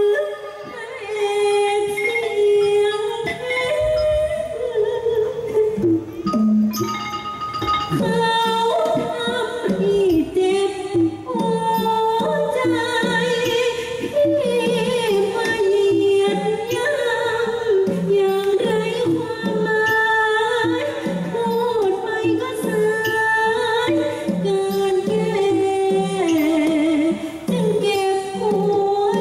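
A woman singing a Thai song into a microphone over instrumental accompaniment with mallet percussion, her held notes wavering with vibrato.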